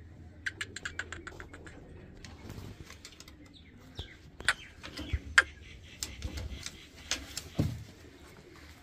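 Birds in a pen: a quick run of about ten short, high chirps about half a second in, followed by scattered sharp clicks and knocks.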